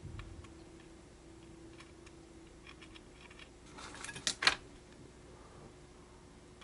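Light clicks and taps of wire and a soldering iron being handled over a metal panel while soldering, with a quick cluster of sharp clicks, the loudest sound, about four seconds in. A faint steady hum runs underneath.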